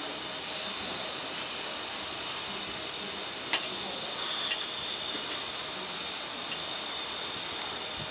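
Compressed air hissing steadily from a blow gun into a pulse jet engine's intake, the starting air used before the engine fires. A single sharp click about three and a half seconds in.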